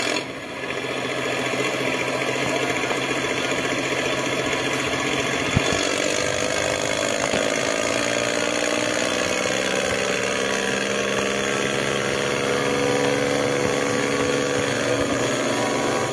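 A steady engine-like running sound with a slowly drifting pitch, and one sharp click about five and a half seconds in.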